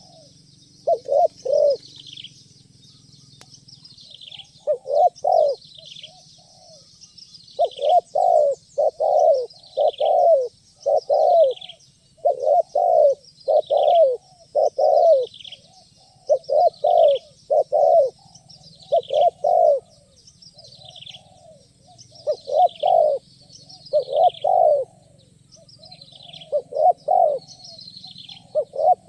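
Spotted doves cooing in short repeated phrases of two or three coos. They pause briefly near the start, then call almost without a break. A small bird's falling chirps repeat over them.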